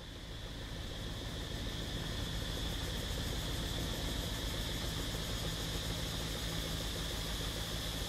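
A motor engine hums at a steady pitch, growing louder over the first two seconds and then holding steady, over a constant high-pitched insect buzz.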